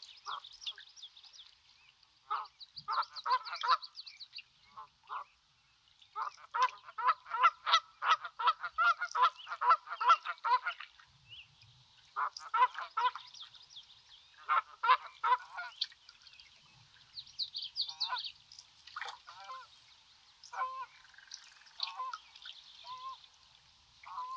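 Geese honking in repeated bouts, with a fast run of many honks from about six to eleven seconds in and scattered single honks later, over a faint steady high-pitched chirping chorus.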